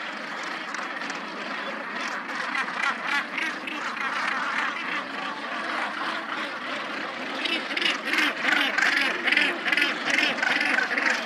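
A northern gannet colony calling: a dense, continuous din of many harsh, rasping calls overlapping, growing louder about eight seconds in.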